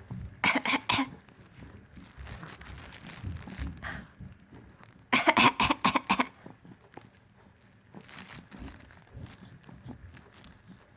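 A person coughing in two short fits of several quick coughs each, one about half a second in and one about five seconds in.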